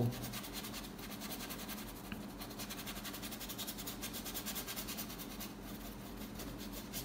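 Paintbrush stroking quickly back and forth across canvas, blending wet paint: a faint, rhythmic brushing scratch, over a low steady hum.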